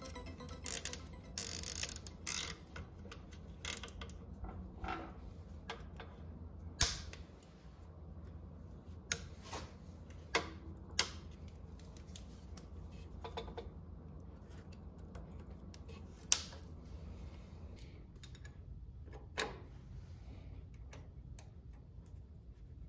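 Nylon zip ties ratcheting and clicking as they are pulled tight around tractor hydraulic hoses. About a dozen sharp clicks come scattered through, over a low steady hum.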